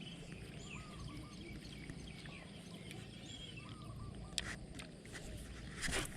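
Outdoor ambience of faint bird calls: short hooked chirps repeated in small groups, with scattered light clicks and a brief louder rustle near the end.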